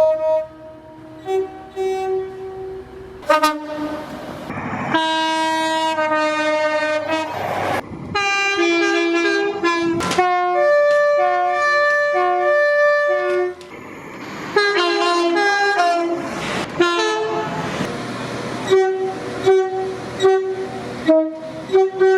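Train horns sounding in a run of blasts: long held chords of several notes at once, and shorter toots, each starting and stopping abruptly.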